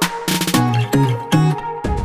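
Electronic background music with a regular beat.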